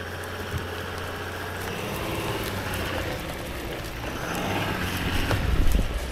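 Toyota LandCruiser 300 Series with its twin-turbo V6 diesel running steadily as it crawls over rough dirt track, with scattered knocks and rattles from the ground. A heavier thump comes about five and a half seconds in.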